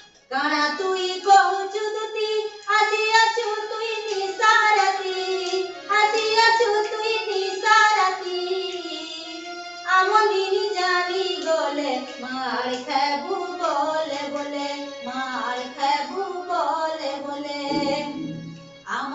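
A woman singing a Makar Bhet folk song of the danda dance solo and unaccompanied, in long, bending held notes.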